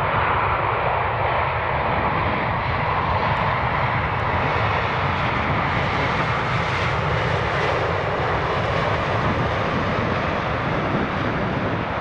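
Jet airliner's engines running loud and steady as the aircraft passes, sharpest in tone around the middle and beginning to fade near the end, with wind rumbling on the microphone.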